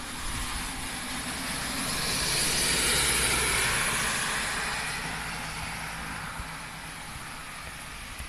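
A vehicle passing on a rain-soaked road: tyre hiss and a low engine hum swell to a peak about three seconds in, then fade away, with rain behind.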